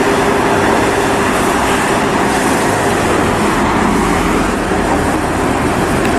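Street traffic: a minibus drives past along a town road with a car passing close by, a steady rush of engine and tyre noise with a faint constant hum.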